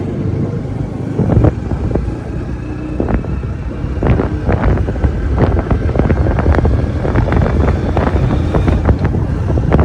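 Vehicle rumble with wind buffeting the microphone, broken by many short knocks and thumps.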